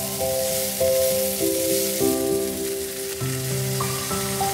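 Diced onion and green pepper sizzling in olive oil in a frying pan, a steady hiss, under background music of held notes.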